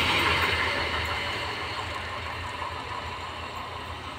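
Electric multiple-unit local train running past on the rails, its rumble and wheel noise fading steadily as the last coach goes by and moves away.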